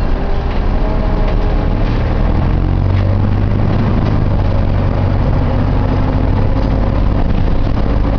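Optare Solo bus running, a steady low engine rumble with thin whining tones above it that drift up and down in pitch.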